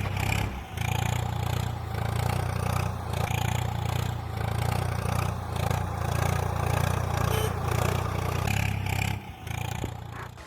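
A small motor-driven miniature machine running steadily, a low hum with a clattering, scraping mechanism over it, that stops about nine seconds in.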